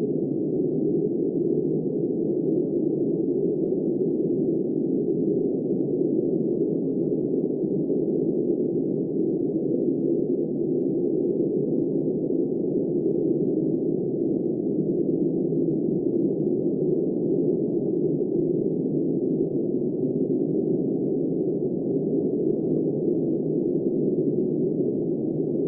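Low, steady howling wind of a snowstorm, a muffled, even drone with no gusts, breaks or sharp sounds.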